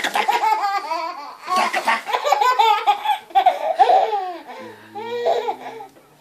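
Baby laughing hard: high, breathy belly laughs and giggles in repeated bouts, with a short break about a second in, trailing off near the end.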